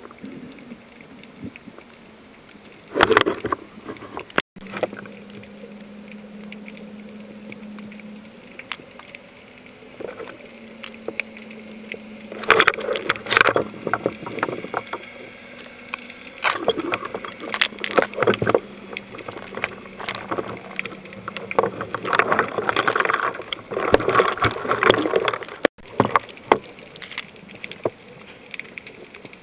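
Underwater sound of water and air bubbles: irregular bursts of bubbling and crackly water noise a few seconds apart, over a steady low hum through the middle.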